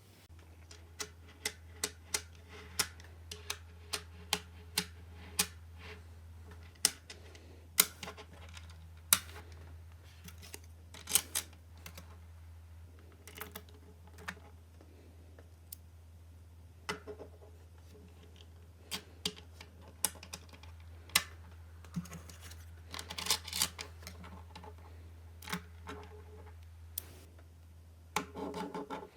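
Small magnetic balls clicking as they snap together and are set in place: sharp, irregular clicks, a few close together around three-quarters of the way in and again near the end, over a steady low hum.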